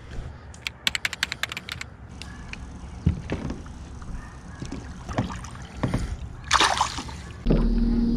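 Fishing-boat sounds: a quick run of clicks and a few scattered knocks, a short rushing burst, then a boat motor comes on about seven and a half seconds in and runs with a steady hum.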